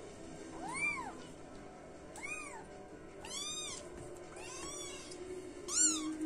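Burmilla kittens mewing: five short high-pitched mews, each rising then falling in pitch, spaced about a second apart, the last one loudest. Soft background music plays underneath.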